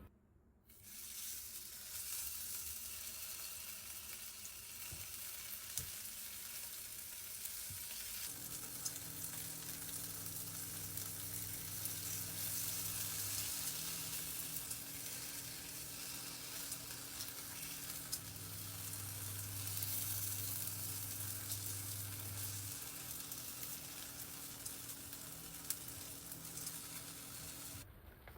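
Food frying in hot oil in a pan: a steady sizzle with small crackles that starts just under a second in. A steady low hum joins it about eight seconds in.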